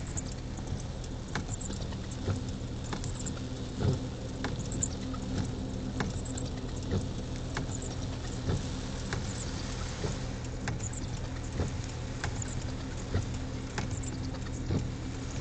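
Rain pattering and ticking irregularly on a vehicle's roof and windscreen, over the steady low hum of its engine running.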